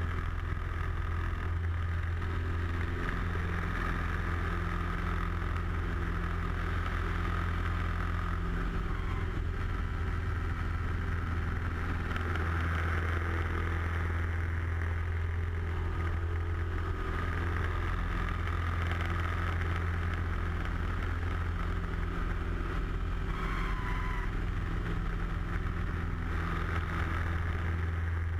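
Light airplane's piston engine and propeller droning steadily as heard inside the cockpit during aerobatic flight, with the engine note shifting slightly a few times.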